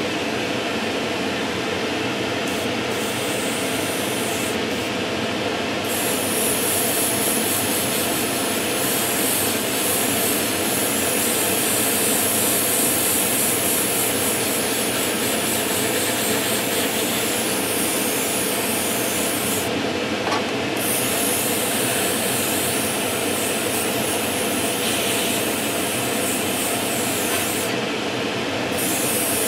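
Spray booth extractor fan running steadily, with the hiss of an airbrush spraying at reduced air pressure in bursts that stop briefly a few times as the trigger is released.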